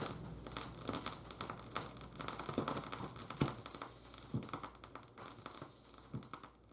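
Faint crinkling and rustling with scattered light clicks and taps, one a little louder about three and a half seconds in.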